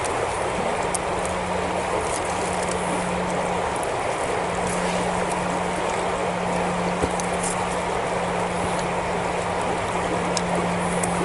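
Steady rush of a river running over a stony bed, with a steady low hum underneath and faint scattered small clicks.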